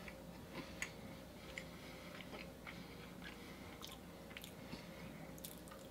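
A person chewing a bite of soft, chewy Chips Ahoy cookie with the mouth closed: faint, scattered small mouth clicks.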